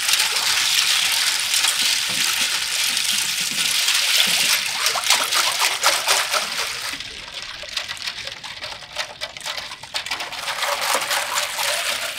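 A ladle stirring ice cubes through a stainless steel pot of iced fruit tea: liquid sloshing and trickling, then many quick clinks of ice against the metal over the second half.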